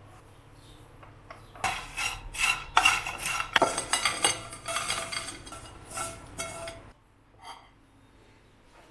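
Dishes and cutlery clinking and clattering in a quick run of knocks with some ringing. It starts about a second and a half in and stops after about five seconds.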